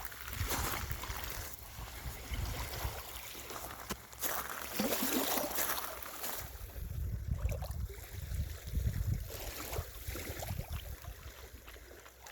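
Small Lake Superior waves lapping and washing at the shoreline, rising and falling, with wind rumbling on the microphone.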